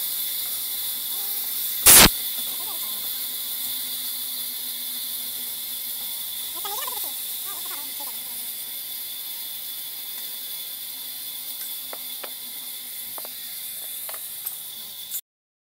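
Steady background hiss, with one loud sharp knock about two seconds in and a few light clicks near the end, before the sound cuts off suddenly.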